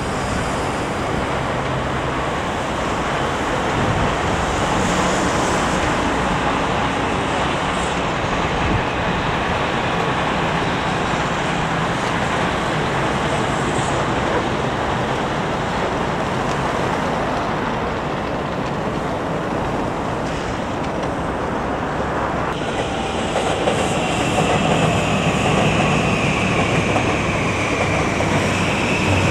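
Electric trains running past on the multi-track line, a steady dense rumble of wheels on rails. About two thirds of the way in, a high whine joins and slowly falls in pitch.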